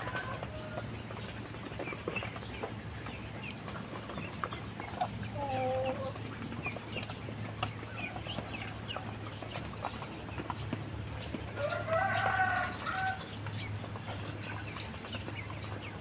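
Chickens clucking, with scattered short high chirps throughout. A pitched call comes about five seconds in and a louder, longer one about twelve seconds in, over a steady low hum.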